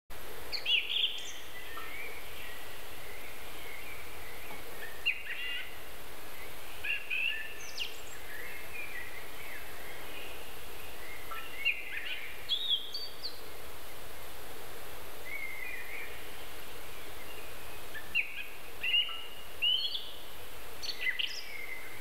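Small songbirds giving short chirping and whistled phrases every few seconds, over a steady outdoor background hiss.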